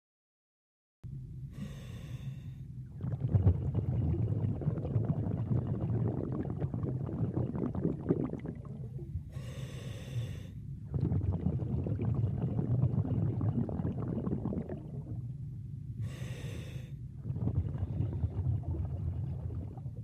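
A diver's breathing heard underwater: three short hissing inhalations, about seven seconds apart, each followed by a longer, louder rush of exhaled breath. A low rumble runs underneath, starting about a second in.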